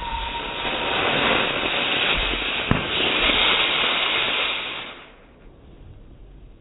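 Firework rocket with a loud, sustained hiss, one sharp crack about two and a half seconds in, and the hiss dying away after about five seconds.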